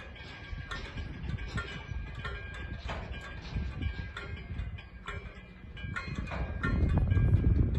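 Railway wagons in a shunting yard: steel wheels squealing on the rails in thin, high tones, over irregular clacks and knocks of wheels on the track. A low rumble grows louder near the end.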